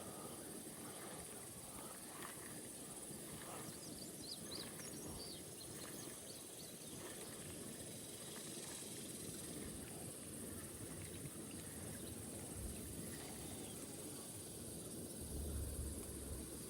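Faint outdoor ambience: a steady low hiss, with a few short high chirps about four seconds in and a brief low rumble near the end.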